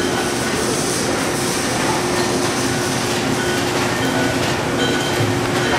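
Metal lathe running at a steady speed with the spindle turning, giving a constant mechanical running noise with a steady hum.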